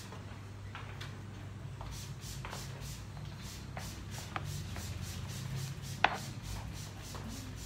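Soft, repeated rubbing and crinkling strokes of a hair-colouring job: a gloved hand working a foil or plastic strip against a section of hair. One sharp click comes about six seconds in, over a steady low hum.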